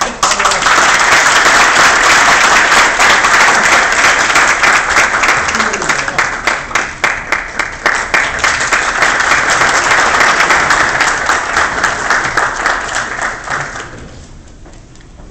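Audience applauding: many people clapping together, starting all at once, then thinning out and dying away about fourteen seconds in.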